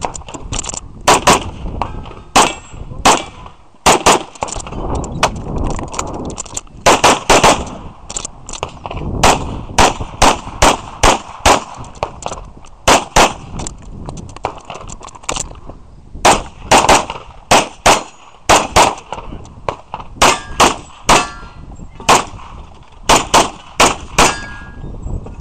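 Grand Power X-Calibur pistol firing rapidly through an IPSC course of fire: dozens of loud shots, mostly in quick pairs (double taps), with short pauses between strings as the shooter moves from port to port.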